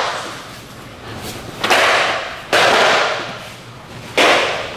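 Martial-arts belts whipped against a person's gi: three loud, sharp lashes, each followed by a fading noisy tail.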